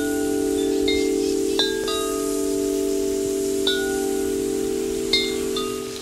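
Wind chimes ringing: irregular strikes every second or two, with several low tones ringing on and overlapping.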